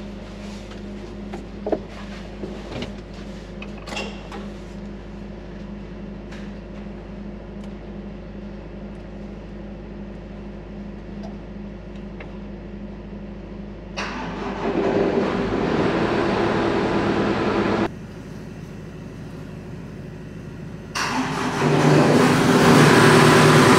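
Hitachi Zaxis 280 excavator's diesel engine being started: a first attempt about two-thirds of the way in runs for about four seconds and cuts off abruptly. A second attempt about three seconds later catches, and the engine keeps running, louder and steady near the end. Before that, a steady low hum with a few clicks.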